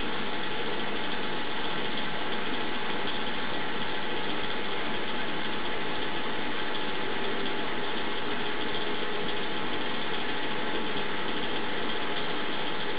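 Steady mechanical hum with an even hiss, unchanging throughout, with a few faint steady tones in it.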